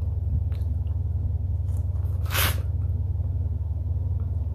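A short, sharp breath of air about halfway through, over a steady low hum.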